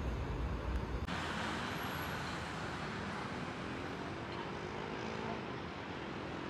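Road traffic on a busy city avenue: a steady wash of passing cars and buses. A heavier low rumble in the first second changes abruptly about a second in.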